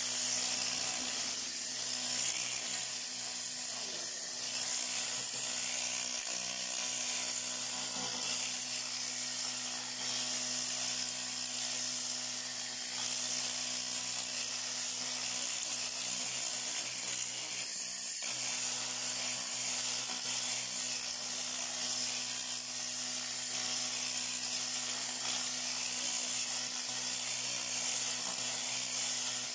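Fiber laser welding and cleaning machine running continuously: a steady high-pitched hiss over a low electrical hum.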